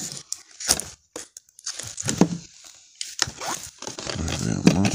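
Plastic shrink wrap on a DVD case crinkling in irregular bursts as it is picked at, torn and handled, with a few clicks from the case.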